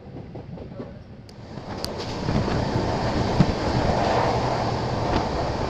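South Bihar Express passenger train running along the track, heard from a coach window: rushing air and the rumble of the coaches, growing louder about two seconds in.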